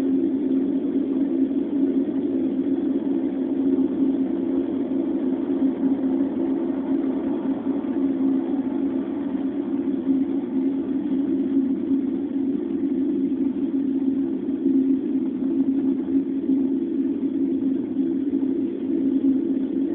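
A steady low droning hum that holds unchanged throughout, with no breaks or distinct events.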